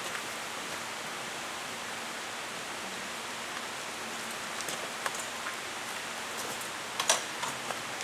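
Steady, even hiss with no bird call, broken by a few sharp clicks about seven seconds in, the loudest of them near the end.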